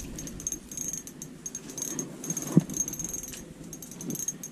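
Fishing gear rattling and clicking as it is handled during a hookup, with one sharp knock about two and a half seconds in.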